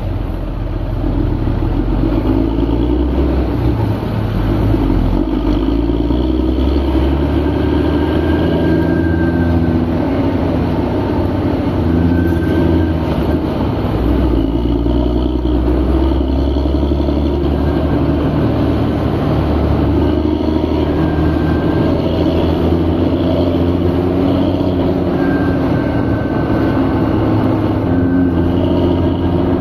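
A motor vehicle running steadily, with a few short high beeps now and then.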